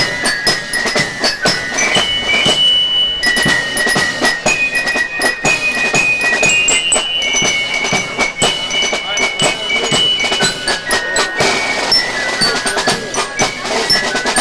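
Marching band with bell lyres and snare drums playing: a high, ringing melody in held notes over a steady patter of drum strokes.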